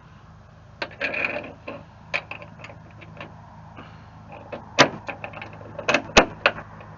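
Irregular metal clicks and knocks, with a short rasp about a second in, from a barn-door latch being handled on an old truck's door. The loudest knocks come from about five to six and a half seconds in, over a steady low hum.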